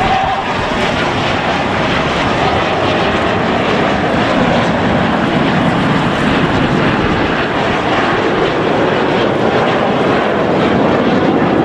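Jet noise from a formation of Aermacchi MB-339 trainers, each powered by a single Rolls-Royce Viper turbojet. It is a steady, loud rushing sound that swells slightly toward the end.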